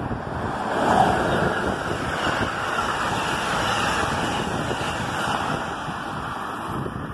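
Amtrak passenger train behind an ACS-64 electric locomotive passing at speed: a steady rush of steel wheels on rail and moving air that swells about a second in and eases near the end. Wind buffets the microphone underneath.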